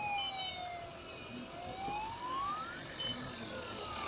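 A siren wailing: one tone sliding slowly down, rising again from about a second in to a peak near three seconds, then falling once more, over the low rumble of road traffic.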